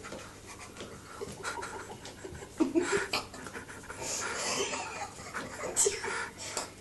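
A kitten's claws scratching and scraping on wallpaper as it leaps up the wall again and again, with light thumps as it drops back to the floor. A longer run of scraping comes about four seconds in.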